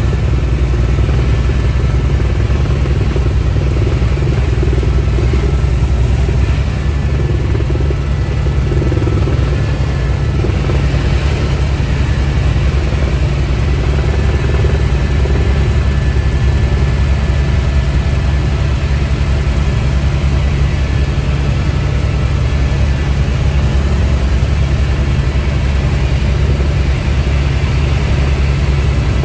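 Helicopter in flight heard from inside the cabin: a loud, steady engine and rotor drone.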